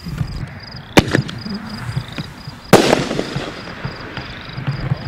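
A 1.75-inch consumer canister firework shell fired from its mortar tube: the lift charge goes off with a sharp bang about a second in, and the shell bursts overhead with a louder bang and a ringing tail almost two seconds later.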